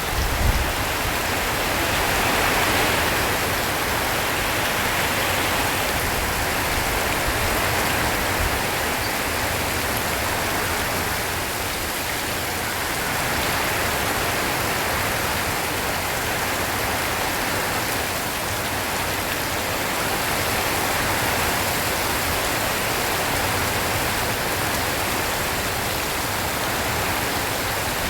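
Heavy rain falling on a tin roof: a steady, dense hiss of drops that swells and eases slightly. There is a brief low thump right at the start.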